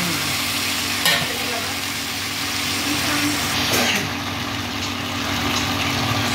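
Sliced capsicum, onion and tomato sizzling steadily in a frying pan during stir-frying with a slotted spatula, over a steady low hum. Two short knocks about a second in and just before four seconds.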